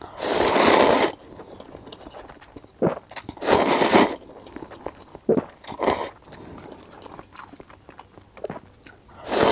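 A person slurping instant noodles from a cup, three long slurps about a second each, near the start, about three and a half seconds in, and at the end, with quieter chewing between them.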